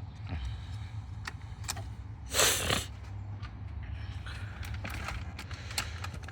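Plastic ignition coil connector on a BMW inline-six being unlatched and pulled off the coil: a few small clicks and a short, louder scrape about two and a half seconds in, over a steady low hum.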